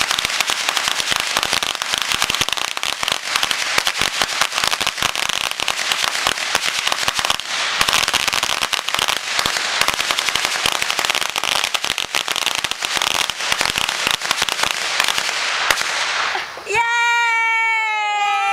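A ground firework crackling continuously: a dense, rapid stream of small pops and snaps. Near the end it gives way to music, a chord that falls in pitch.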